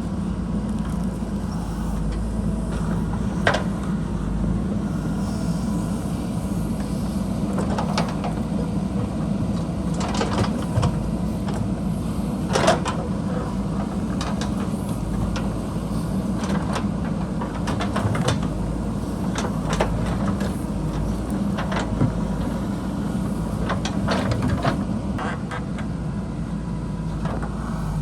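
Diesel engine of a JCB backhoe loader running steadily under work, with scattered sharp knocks and clanks through it.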